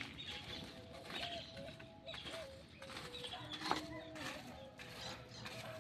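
Low, repeated cooing of a dove in the background, with scattered crackles and rustles and one sharper knock a little past halfway.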